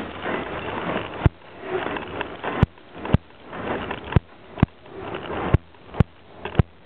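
Ride noise from a bicycle-mounted camera in motion: a steady rush of wind and rolling noise, with sharp clicks every half second to a second.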